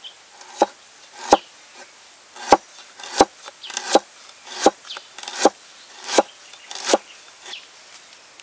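Cleaver slicing lemongrass stalks on a wooden cutting board: about nine sharp knocks of the blade on the board, roughly one every two-thirds of a second, stopping about seven seconds in.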